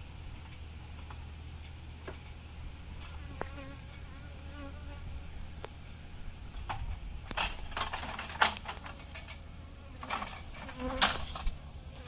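Honeybees buzzing around, one flying close by with a buzz that wavers in pitch a few seconds in. In the second half, a run of knocks and clatters as an aluminium stepladder is handled, the loudest near the end.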